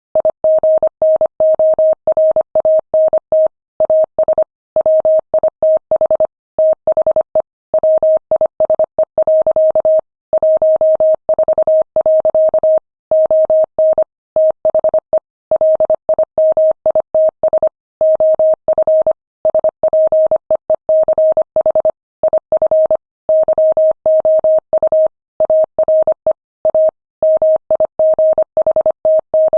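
Morse code sent at 25 words per minute: a single beep tone keyed on and off in quick dots and dashes, with short gaps between letters and longer gaps between words.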